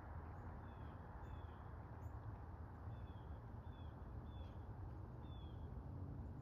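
About six short, high, downward-sliding bird chirps, unevenly spaced, over a steady outdoor hiss and low rumble.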